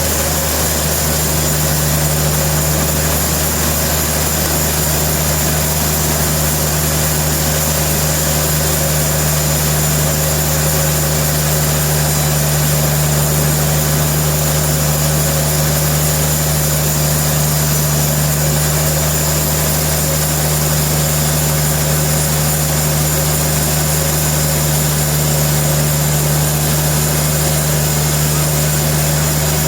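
Sawmill machinery running, a loud steady drone with a constant low hum that does not change.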